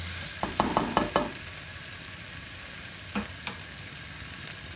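Wooden spoon stirring chicken pieces in a pressure cooker, scraping and knocking against the pot: a quick run of knocks in the first second, and two more about three seconds in, over a faint sizzle of frying.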